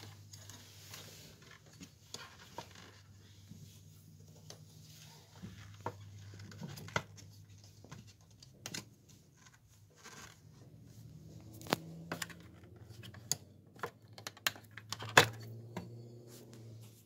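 Scattered clicks and knocks from the plastic lid and metal body of a Bosch juicer being handled and turned over, the loudest knock near the end, over a steady low hum.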